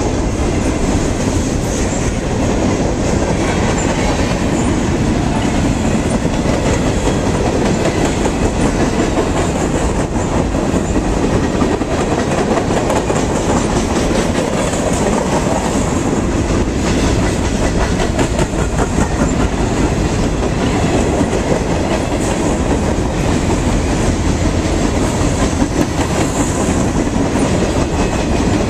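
Freight train of covered hopper cars rolling past close by: a steady, loud rumble of steel wheels on rail, with many quick small clicks and knocks.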